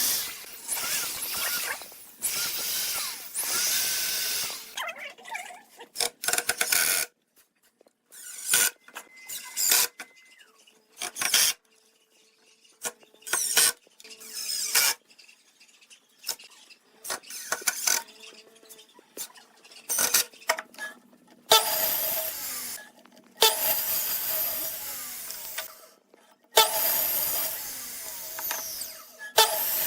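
Woodworking power tools cutting or sanding wood in short runs of a few seconds each, broken by clicks and knocks, with a quieter stretch of scattered knocks in the middle.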